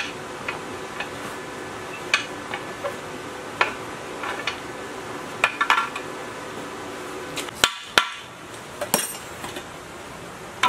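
A steel rod poking and knocking about inside a battered old engine tank: irregular sharp metallic clinks and knocks, a few louder ones later on.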